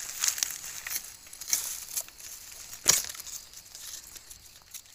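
Dry leaf litter crackling and rustling as gloved hands and a knife dig a mushroom out of the forest floor, with one sharp snap about three seconds in.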